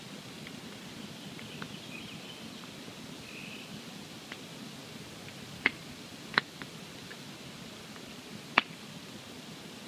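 Campfire burning with a steady low rustle and faint scattered crackles, broken by three sharp, loud pops of burning wood in the second half.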